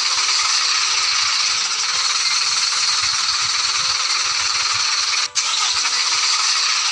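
Steady mechanical whirring and rattling, cut off briefly about five seconds in.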